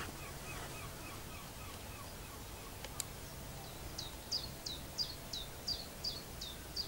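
Small songbirds singing: a repeated low chirping fades out over the first two seconds, and from about four seconds in a bird repeats a high, falling note about three times a second. A single sharp click sounds about three seconds in.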